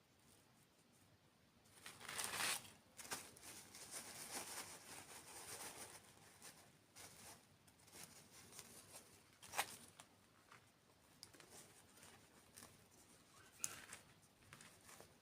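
Faint, close-miked dessert-eating and food-handling sounds: soft crackling and crinkling, with a louder burst about two seconds in and a few sharp clicks later on.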